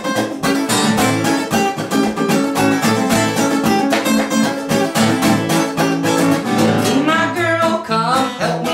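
Acoustic guitar strummed in a steady rhythm as song accompaniment, with some singing near the end.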